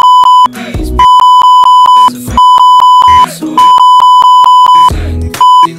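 Censor bleeps: a loud, steady single-pitch beep switched on five times over a rap track, blotting out the lyrics. Most bleeps last about a second; the last one is short. Snatches of the hip-hop beat come through in the gaps.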